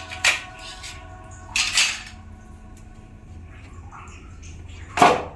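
Hard parts of a gas hob top clinking and knocking as they are handled during disassembly: three sharp knocks, the loudest near the end.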